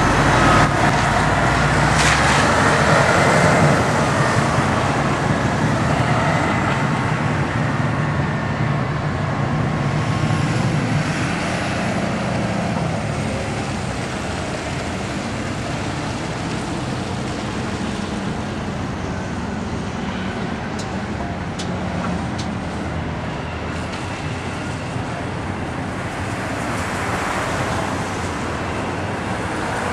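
Traffic noise of road vehicles and heavy diesel site plant running and passing, steady throughout, with an engine note rising in pitch in the first few seconds.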